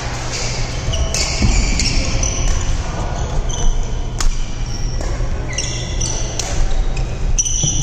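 Badminton doubles rally: rackets hitting the shuttlecock, with one sharp overhead smash about four seconds in, and sneakers squeaking in short high chirps on the court floor. A steady low hum from the hall runs underneath.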